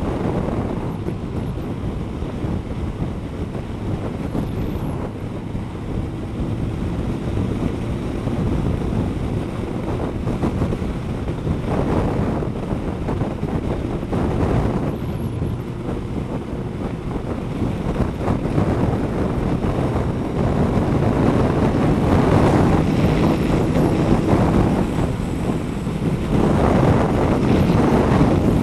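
Wind buffeting the microphone of a moving motorcycle, over the Kawasaki ZZR1200's inline-four engine running at a steady road speed. The rush grows louder in the second half.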